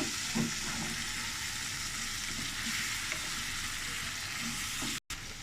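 Onion, garlic and ginger paste frying in oil in a pan with a steady sizzle while being stirred. The sound drops out completely for a moment near the end.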